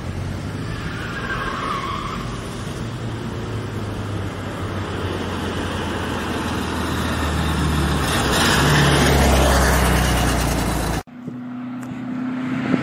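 Air-cooled flat-four engine of a classic Volkswagen Beetle running as the car drives, growing louder around eight seconds in. It cuts off abruptly near the end, and a different engine comes in, revving up in pitch.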